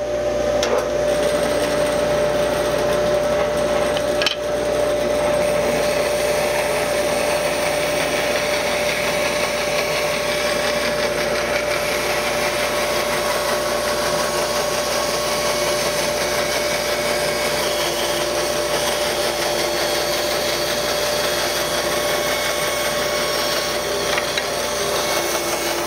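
Bandsaw resawing a board on edge along the fence, the blade cutting steadily through the wood with a constant hum under the sawing noise. One brief knock about four seconds in.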